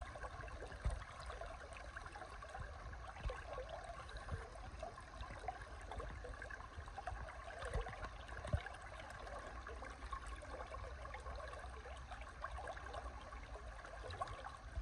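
Steady murmur of a small river's flowing water, with a few soft low thumps now and then.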